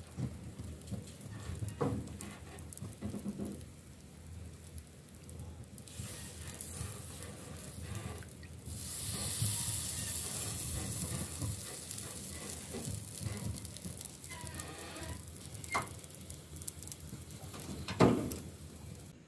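Fingers patting and pressing soft bread dough on a round black metal baking tray, in soft irregular taps. A steady hiss comes in about six seconds in and is strongest in the middle. Near the end there is one sharp, loud knock as the tray is set into the gas oven.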